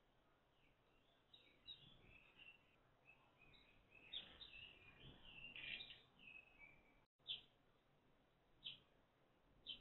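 Eurasian tree sparrows chirping faintly: a run of quick, high chirps for several seconds, then, after a brief gap, single chirps every second or so.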